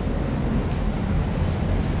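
Steady rushing noise of the Iguazu Falls' cascades, mixed with wind buffeting the microphone.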